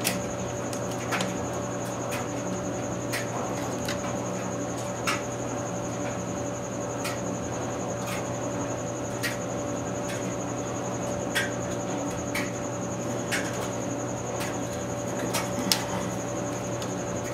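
Light, scattered clicks and taps, roughly one a second, from engine parts being handled and set in place during assembly, over a steady hum.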